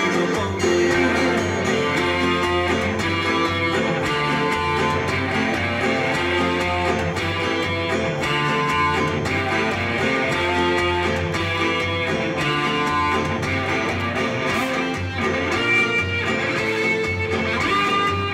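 Shina folk dance music: a plucked string instrument plays a melody over a steady bass beat.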